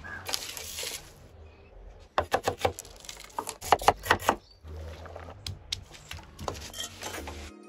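Kitchen knife chopping onion on a wooden cutting board: two quick runs of sharp chops, about two seconds in and again around four seconds in, with a few lighter knocks after. A short rustle comes at the start.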